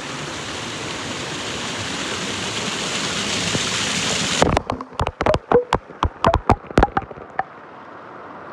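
Rushing water of a small waterfall pouring over rocks close to the microphone, growing louder. A little under halfway through the rush cuts off and gives way to about a dozen sharp plinks and pops of water dripping and splashing on the microphone, then a quieter steady rush.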